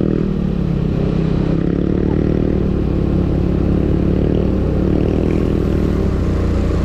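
Motorcycle engine running under way at a steady pace, its pitch dipping briefly near the start and then holding even.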